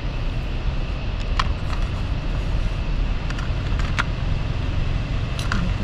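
Pieces of chopped ginger dropped by hand into a steel mixer-grinder jar, giving a few scattered light clicks over a steady low rumble.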